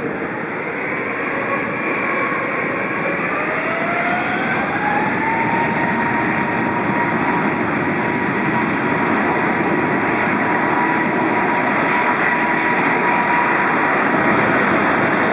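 Jet airliner engines spooling up: a whine rises in pitch over the first few seconds and then holds steady while the engine noise grows louder.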